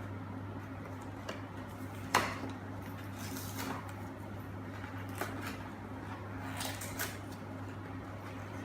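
Small clicks and rustles of hands opening chocolate surprise eggs and their plastic toy capsules, with one sharper click about two seconds in, over a steady low hum.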